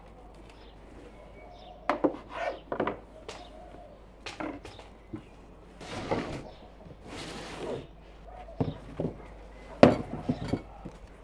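Scattered knocks and clinks of food preparation at a table: a knife and hands working on a cutting board, dough slices set on a metal baking tray, and a wooden board handled. There are two short rustles around the middle, and the loudest knock comes near the end.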